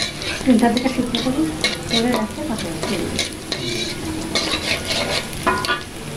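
Sliced onions and dried red chillies sizzling in hot oil in a wok, with a spatula stirring and scraping against the pan in repeated strokes.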